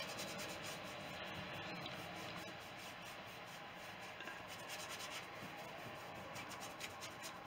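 Long-handled paintbrush working oil paint onto a textured painting board in repeated scrubbing strokes, faint and steady.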